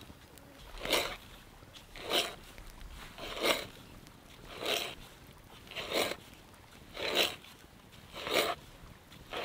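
T-handle hand auger boring into a log, each turn of the handle cutting with a short rasping stroke, about one every 1.2 seconds, starting about a second in. It is drilling a hole for a wooden peg to join raft logs without nails or rope.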